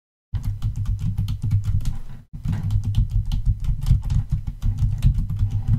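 Typing on a computer keyboard: a quick, steady run of key clicks, broken by a short pause about two seconds in.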